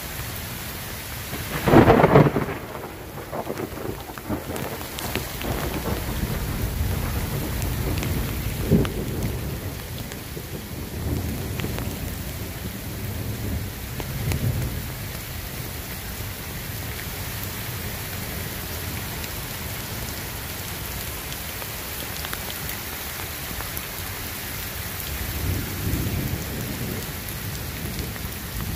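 Downpour of rain falling steadily through a thunderstorm. A loud, close thunder crack comes about two seconds in and rolls on into rumbling, a second sharp crack comes near nine seconds, and lower rumbles follow later.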